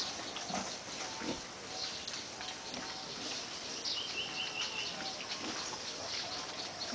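Pigs on a pig farm grunting and squealing in short, scattered calls, with a brief run of five high chirps about four seconds in.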